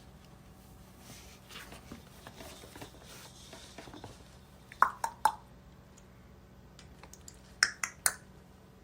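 Two quick groups of three sharp clicks or snaps, about three seconds apart, over faint rustling.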